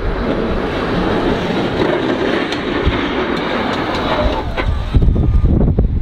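Boss V-plow's cutting edge scraping over snow-covered pavement as the pickup pushes snow: a steady grinding rush that stops about five seconds in. Wind then buffets the microphone.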